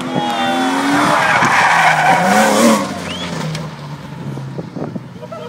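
Drift car sliding sideways through a corner: the engine revs climb, then the tyres squeal and scrub loudly about two seconds in before the sound fades as the car pulls away.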